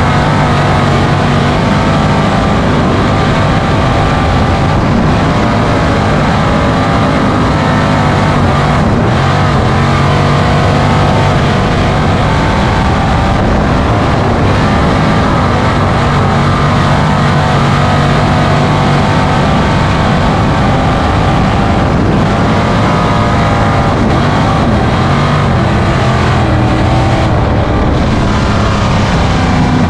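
Race car engine running hard and continuously, its pitch holding fairly steady with small rises and falls.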